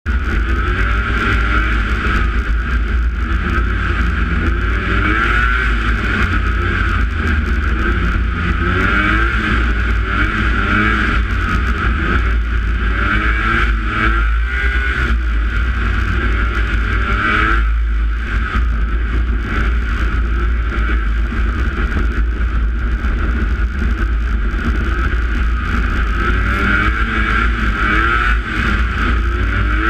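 Snowmobile engine running at speed, its pitch rising and falling as the throttle is worked, over a steady rush of noise.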